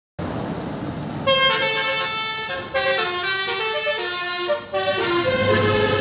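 A bus's 'telolet basuri' musical air horn playing a stepped multi-note tune, starting about a second in over a steady rumble and breaking off briefly twice.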